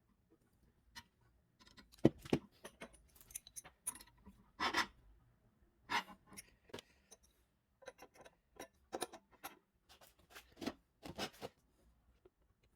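Hand tools and small parts being handled and worked at a bench: irregular clicks, taps and short scrapes, the loudest a sharp knock about two seconds in.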